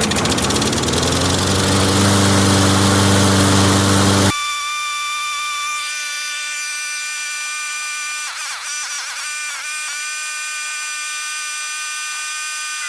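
Briggs & Stratton 625 Quantum single-cylinder mower engine running just after starting, rising in pitch as it comes up to speed, while it burns off oil left in the carburetor. About four seconds in it cuts off abruptly to a steady, high whistling sound of several tones.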